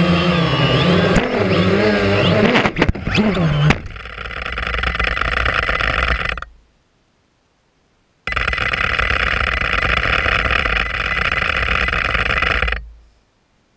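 DJI Phantom quadcopter motors whining as it skims the turf, their pitch wavering, then a quick clatter of knocks about three seconds in as the drone crashes and flips, its motors falling in pitch and stopping. After that a steady harsh buzz with a thin high whine runs while the drone lies upside down. It cuts off abruptly, comes back after about two seconds of silence, and cuts off again near the end.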